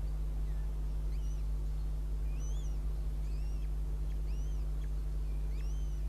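Northern goshawk nestlings giving thin, high begging peeps as the female feeds them: short arched notes, about one a second. A steady low hum underlies them throughout.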